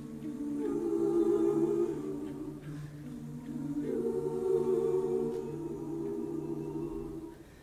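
A high school show choir singing held, wordless chords, moving to a new chord a few times and fading out near the end.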